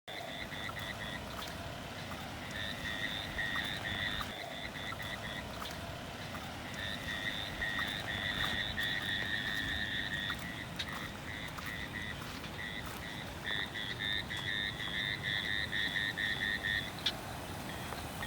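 Frogs calling in chorus, rapid pulsed trills repeated in runs with short breaks, over a steady background hiss.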